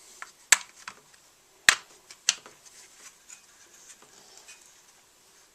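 Hard plastic top cover of a Husqvarna 55 chainsaw being fitted and snapped into place: three sharp clicks in the first couple of seconds, with lighter taps and handling noise around them.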